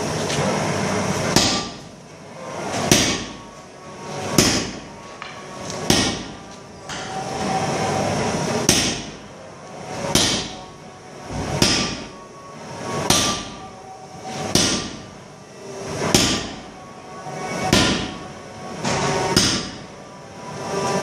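Sledgehammer blows striking hot 1045 steel on an anvil, about one every one and a half seconds, each with a short metallic ring. There is a pause of a couple of seconds near the middle. A steady rushing noise runs at the start until the first blow.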